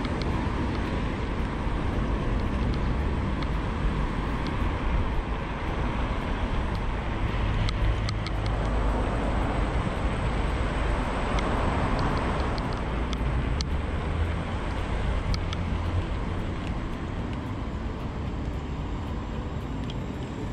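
Ride noise from an electric scooter at about 26 km/h: wind buffeting the handlebar camera and the small tyres rumbling on the pavement, with a few light clicks and rattles. The noise grows fuller for a few seconds around the middle, in an underpass.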